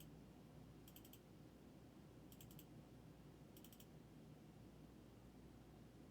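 Near silence broken by three short runs of faint, rapid clicking, about a second and a half apart.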